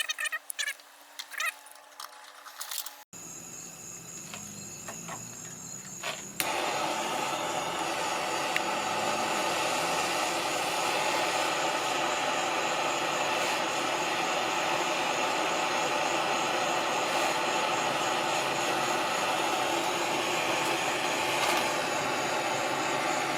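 A few light clicks and clinks, then a propane torch burning with a steady hiss that gets much louder about six seconds in, heating a copper pipe joint for soldering.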